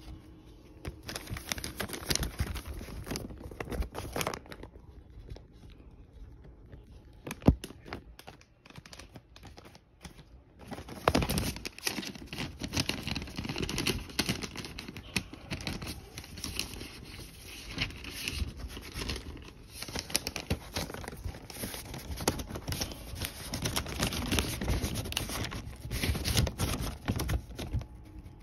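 Paper record sleeves and cardboard packaging rustling and crinkling as they are handled, with a single sharp tap about seven seconds in. The rustling is quieter through the middle, then thicker again from about eleven seconds in.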